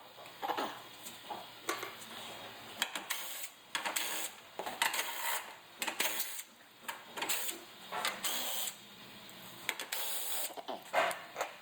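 Hand tools working the clips and 10mm bolts that hold a car's front bumper cover: irregular clicks, rattles and short scraping bursts.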